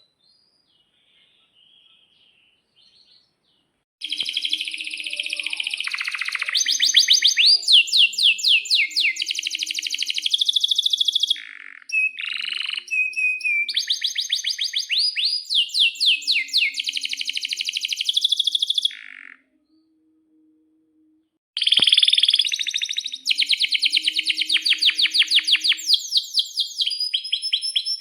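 Male domestic canary singing long phrases of fast trills and rolls, high and piercing, starting about four seconds in. The song breaks off briefly near the middle and again for about two seconds later on before resuming.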